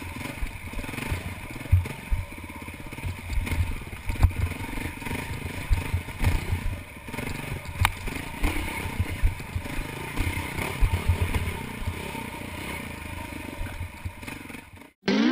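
Enduro dirt bike engine running as the bike rides over a rocky trail, with frequent thumps and clatter as it jolts over the rocks. The sound cuts off suddenly just before the end.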